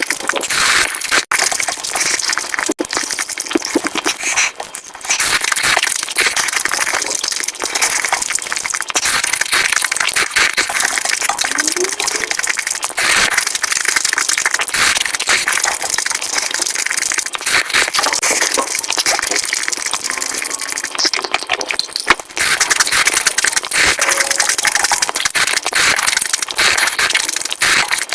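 Dense, continuous crunching, chewing and mouth-smacking of food being eaten close to the microphone.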